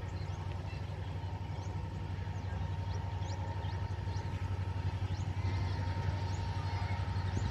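WDG4 diesel-electric locomotive's two-stroke EMD 710 engine working as the freight train approaches: a low, throbbing rumble with a steady whine above it, slowly growing louder.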